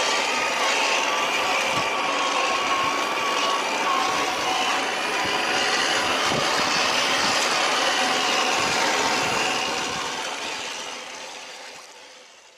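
Electric motor and gearbox of an RC scale truck whining as it drives over rough, muddy ground, with irregular knocks. The sound fades out over the last two or three seconds.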